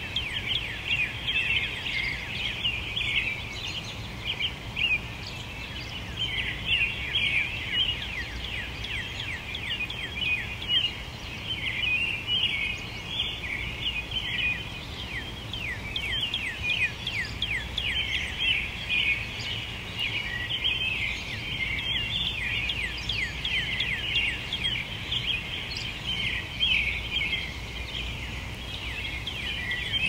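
Dawn chorus of many songbirds, with short chirps and quick downward-slurred notes overlapping continuously over a faint steady low background rumble.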